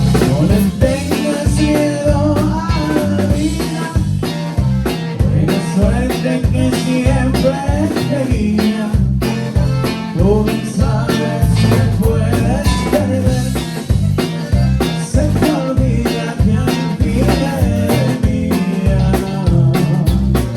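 Live conjunto band playing a tune with a steady bass-and-drum beat and melody lines over it.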